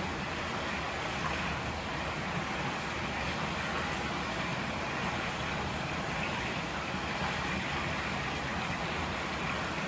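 River water rushing steadily, an even unbroken roar of flowing water.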